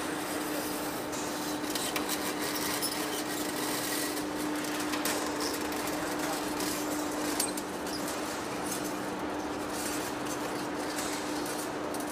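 Large industrial lathe running: a steady hum holding one pitch, with a hiss and many scattered faint ticks over it.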